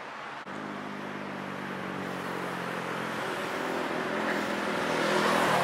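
Road traffic approaching: car and van engines humming under tyre noise, growing steadily louder as the vehicles come closer.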